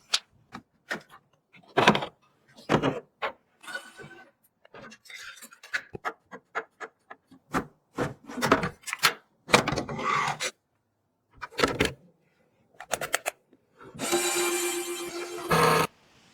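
Computer parts being handled during a PC build: a string of short, irregular rubs, scrapes and clicks of plastic and metal. Near the end comes a steadier rasping sound with a faint low hum under it, lasting about two seconds and stopping abruptly.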